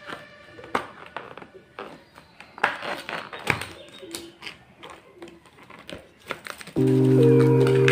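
Thin clear plastic lid being pried off a plastic compartment meal tray: irregular crackles, clicks and snaps of the plastic. Loud background music starts abruptly near the end.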